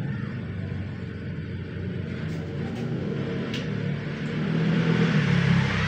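A motor vehicle engine running with a steady low rumble that grows louder near the end, with a few sharp clicks a couple of seconds in.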